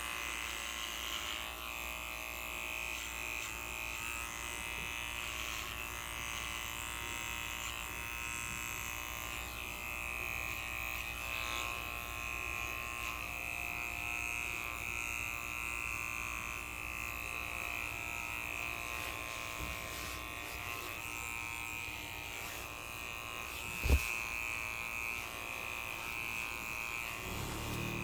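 Electric hair clipper running steadily with a constant buzz, with one sharp knock about four seconds before the end.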